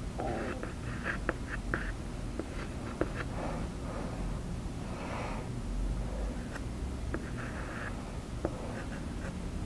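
Soft pastel stick scratching across textured pastel paper in short, repeated strokes, drawing thin twig lines, with a few light clicks in between.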